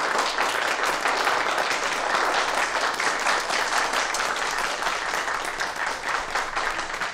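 A group of people applauding, many hands clapping together steadily.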